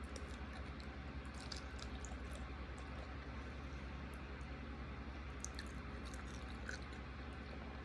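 Faint wet chewing and small mouth clicks from someone eating creamy chicken Alfredo, over a steady low hum.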